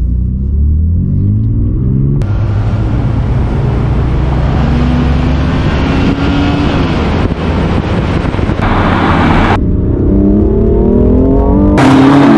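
BMW turbocharged straight-six engines at full throttle in a rolling-start drag race, the engine note climbing in pitch as the cars accelerate and dropping back at a gear change near the end. Wind rush is mixed in, and the sound changes abruptly a few times.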